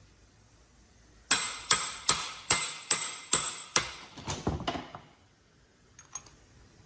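Hammer blows on metal, tapping a steel cap into a truck brake caliper housing: seven sharp, evenly paced ringing strikes about 0.4 s apart, then a few lighter, quicker taps.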